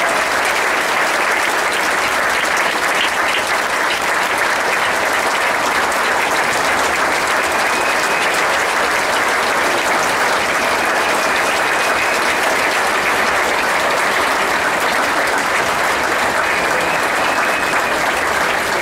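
A large audience applauding steadily in a standing ovation, a dense, sustained clapping that holds level throughout.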